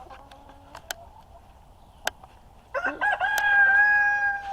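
Rooster crowing: one long crow at a steady pitch, starting a little past halfway and held for nearly two seconds. A couple of faint sharp clicks come before it.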